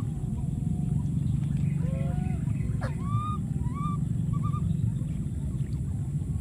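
Baby monkey giving a run of short, high squeaking calls in the middle, each rising and then falling, over a steady low rumble.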